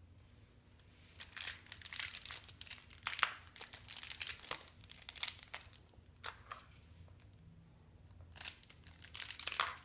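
Crinkling and tearing of a small plastic toy blind-bag wrapper being pulled open by hand, in a run of crackles from about a second in and again near the end.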